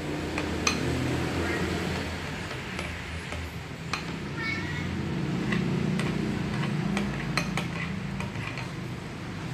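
A metal spoon clinking and scraping against a ceramic bowl with irregular sharp taps while stirring jelly-powder pudding mix dissolved in hot water, over a steady low background hum.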